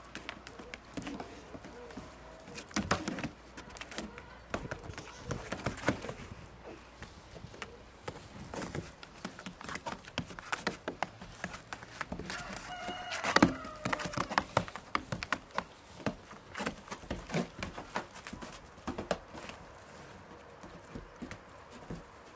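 Goat kids' hooves tapping, knocking and scrabbling irregularly on the felt-covered wooden roof of a small playhouse as they walk, jump and push each other. A short pitched call comes about thirteen seconds in, the loudest moment.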